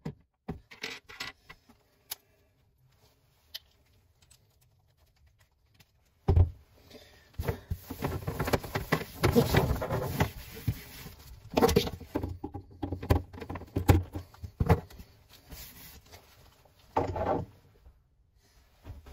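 Handling noise in the cabinet under a kitchen sink: hands rustling paper towels and knocking against the plastic drain pipes and cabinet. There are scattered clicks at first and a quiet spell of a few seconds, then a long stretch of rustling and knocks from about six seconds in, and one more short burst of rustling near the end.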